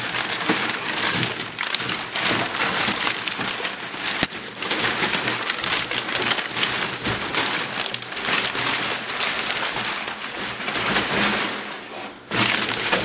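Brown kraft packing paper being pulled out of a cardboard box and crumpled, a continuous crackling rustle with a short lull near the end.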